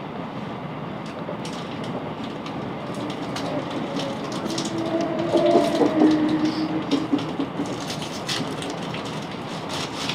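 Class 707 Desiro City electric train running along the line: a steady rumble with scattered rail clicks. About halfway through, a brief squealing tone rises out of it and the noise grows louder for a couple of seconds.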